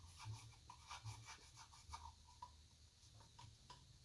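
Faint scratching and light clicks of a screwdriver scraping around inside an open Delco distributor housing, cleaning out oil from the bottom.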